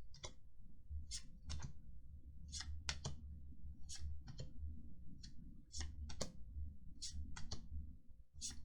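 Magic: The Gathering trading cards being flipped through one at a time, a crisp click or snap as each card is moved, often in quick pairs, about one to two a second. A low steady hum lies underneath.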